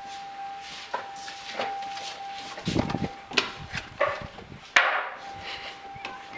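Scattered knocks and thuds, the sharpest bang just before five seconds in, over a faint steady high hum.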